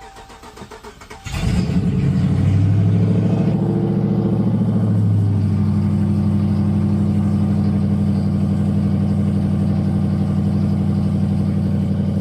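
Car engine starting after sitting unused for about a month: it catches about a second in, runs at raised revs for a few seconds, then settles to a steady idle.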